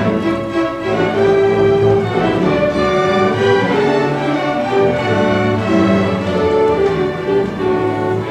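Symphony orchestra playing, with violins, cellos and double basses bowing alongside winds, in a continuous passage of changing notes.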